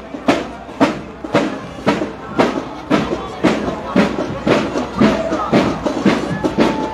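Marching drums of a banda de guerra (Mexican drum-and-bugle corps) beating a steady marching cadence, about two strokes a second, with a brief held note near the end.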